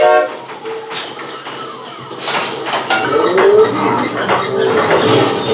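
Western shooting-gallery game sounds as targets are hit with its rifles: a short horn-like tone at the start, sharp hits about a second in, a loud noisy blast a little after two seconds, then a busy jumble of effects with a rising wail.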